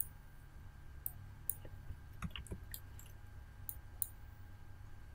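About a dozen short, sharp clicks of a computer mouse and keyboard, scattered unevenly over a few seconds as an error box is dismissed and a password is retyped. A faint steady low hum runs underneath.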